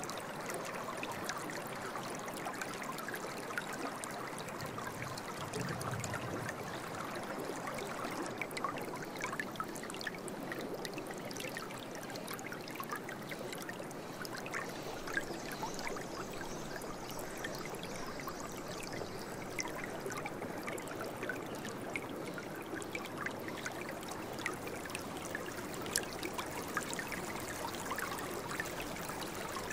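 Steady running water, a small stream trickling and burbling with many small splashy ticks and no change in level.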